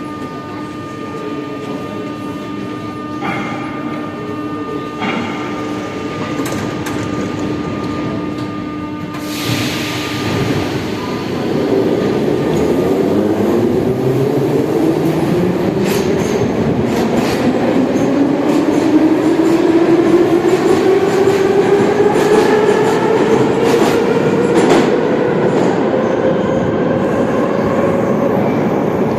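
Metro train with a steady electrical hum, then a short hiss of air about nine seconds in, followed by the traction motors' whine rising steadily in pitch and getting louder as the train accelerates.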